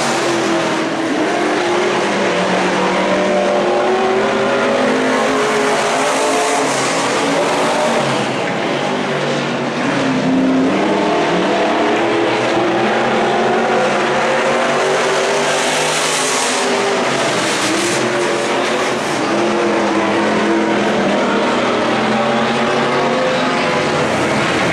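A pack of IMCA Stock Car V8 engines racing around a dirt oval. Several engine notes overlap, each rising and falling in pitch as the cars run the straights and turns.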